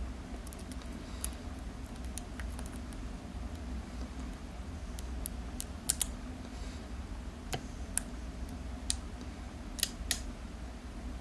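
Lock pick and tension wrench working the pin stack of a euro cylinder lock: irregular sharp metallic clicks and light scraping as the pins are lifted, the loudest clicks about six and ten seconds in.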